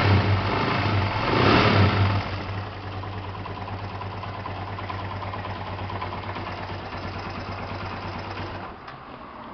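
Honda NX 200 single-cylinder motorcycle engine revved once more about a second and a half in, then dropping back to a steady idle. Near the end the engine note cuts off, as if the engine is switched off.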